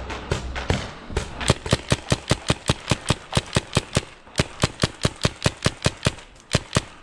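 Paintball markers firing rapid strings of shots, about six a second, with short lulls about four seconds in and again near six seconds.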